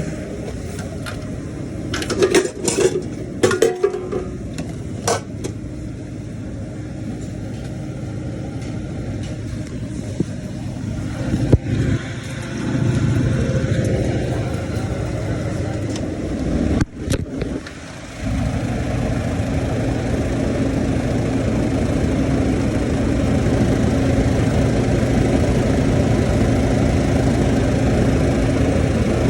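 Kairak refrigerated table-top unit running with a steady mechanical hum, the noise the unit is faulted for. A few sharp knocks and clatters come in the first few seconds. About 17 seconds in the hum dips briefly and comes back louder.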